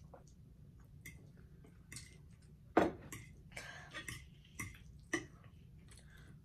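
Close-miked eating sounds: wet chewing and lip smacks of creamy Alfredo pasta, mixed with forks clicking and scraping against a glass bowl and a plate. The sharpest click comes just under three seconds in.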